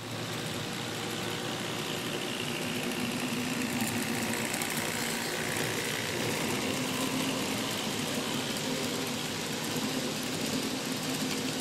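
N-scale model train running along the track: a steady whir from its small electric motor and wheels.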